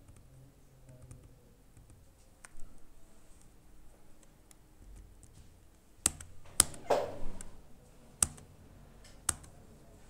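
A few scattered keystrokes on a computer keyboard, about six sharp taps and most of them in the second half, as the presenter moves through Tally's ledger list and accepts the entry.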